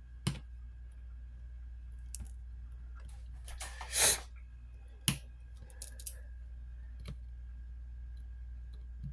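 Sparse small clicks and taps of a PH00 precision Phillips screwdriver working the tiny screws of a smartphone's metal plate, with a brief louder hiss about four seconds in, over a steady low hum.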